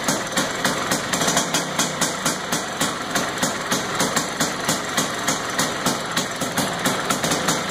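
A 1976 Vespa Rally 200's single-cylinder two-stroke engine, freshly rebuilt, running at idle. Its note pulses evenly about four or five times a second.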